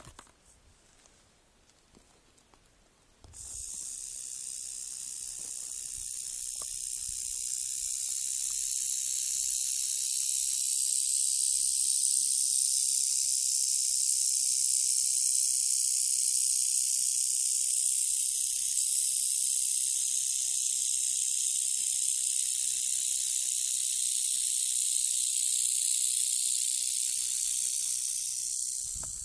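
Rattlesnake rattling its tail: a continuous high buzz that starts suddenly about three seconds in, grows louder over the next several seconds, then holds steady until it stops near the end. The rattle is the snake's defensive warning.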